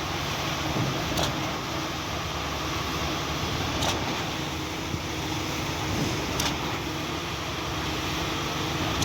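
Truck-mounted concrete pump running steadily, with a short knock about every two and a half seconds over the constant machine noise.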